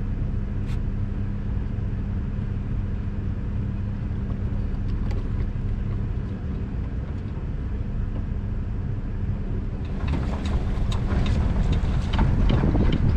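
Vehicle engine idling with a steady low hum. About ten seconds in, a louder rumbling sets in with rattles and clicks.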